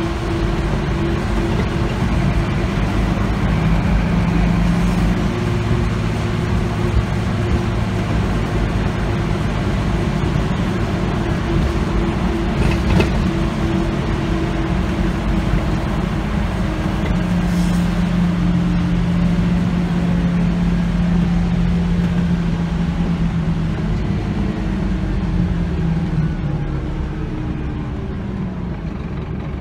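Scania OmniCity bus heard from inside the passenger saloon while under way: the diesel engine running steadily over road noise, its note changing several times and dropping near the end.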